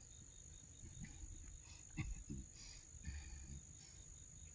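Crickets chirring in a steady, high, unbroken drone, with a couple of sharp knocks from handling about two seconds in.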